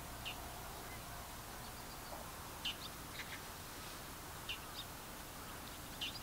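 Small birds giving short, high chirps a second or two apart, some in quick pairs, over a faint steady outdoor hiss.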